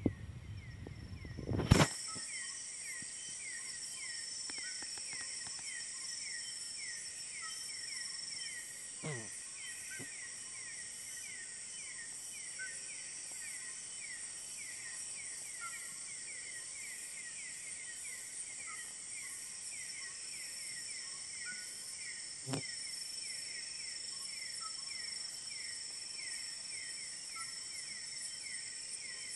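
Night-time chorus of insects: rapid, evenly repeated chirps with a steady high-pitched whine above them, and fainter short calls about once a second. A loud low rumble stops abruptly about two seconds in, and there are single soft knocks near nine and twenty-two seconds.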